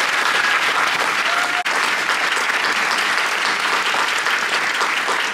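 Audience applauding: dense, steady clapping that carries through the whole stretch.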